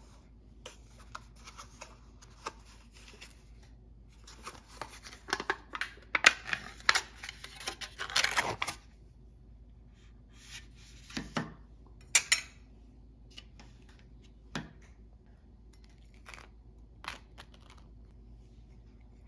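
Plastic tub of cream cheese opened: the lid is pried off and the foil seal peeled back with a run of crinkling and tearing, loudest near the middle. After that, a knife scrapes cream cheese out and spreads it onto a toasted bagel, with short scraping clicks.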